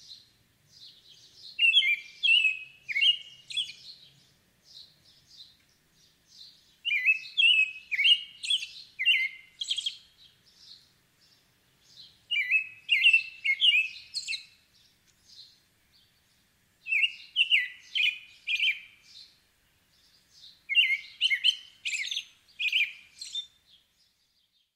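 American robin singing: bouts of short whistled phrases, each bout a few seconds long and coming about every five seconds, with fainter high squeaky notes in between.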